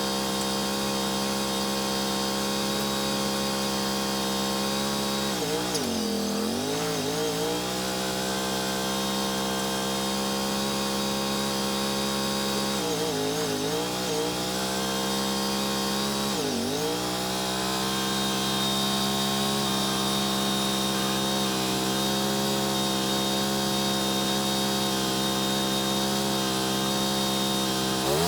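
Wood-Mizer LT35 portable bandsaw mill running steadily while sawing the log, its engine note sagging in pitch and recovering three times: about five seconds in, near thirteen seconds and near sixteen seconds.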